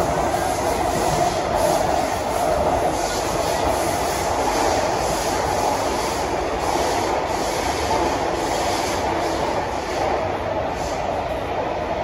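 Running noise of a CRRC Sifang C151B metro train heard inside the carriage: a steady rumble of wheels on rails with a hum centred in the middle range, easing slightly over the last couple of seconds.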